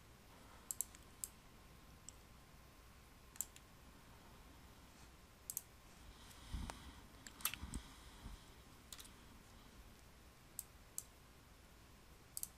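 Sparse sharp clicks of a computer mouse, about a dozen spread out, including a quick pair about a second in, with a few duller knocks from the desk around the middle, over faint room tone.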